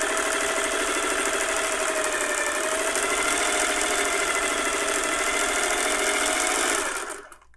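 Singer 401A Slant-O-Matic sewing machine, freshly cleaned, oiled and greased, sewing a straight stitch at a steady speed: motor hum with a fast, even clatter from the needle mechanism. It slows and stops about seven seconds in.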